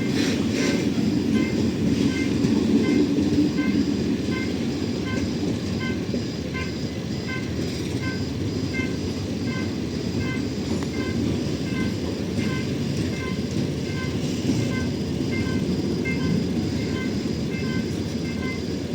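Freight train hauled by a TCDD DE 22000-class diesel locomotive rolling past with a steady rumble, louder in the first few seconds. Throughout, a short high ringing tone repeats at a steady pace.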